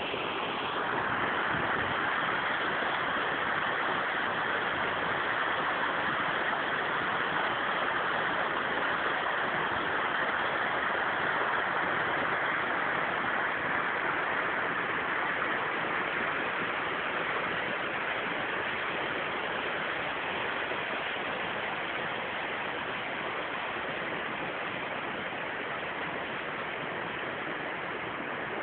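Mountain stream of meltwater running down from Hemkund lake, a steady rushing of water over rocks that eases slightly toward the end.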